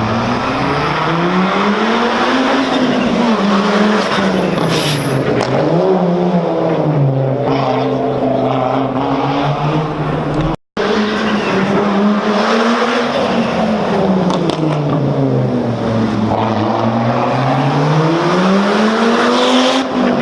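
Rally car engine revving up and down over and over, its pitch rising and falling smoothly, with a short high squeal twice. The sound drops out for an instant about halfway through.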